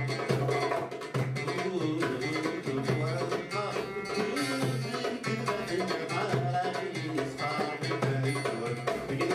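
Algerian mandole strummed and plucked in a quick, rhythmic Kabyle folk accompaniment, with a man singing over it.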